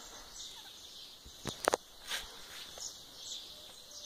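Hens clucking faintly in the background. A few sharp knocks about a second and a half in, from the phone being handled.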